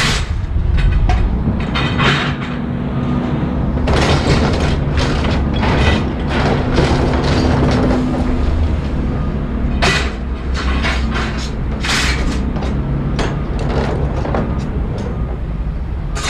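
Scrapyard noise: heavy machinery running with a steady low rumble, under repeated loud metallic bangs and clanks.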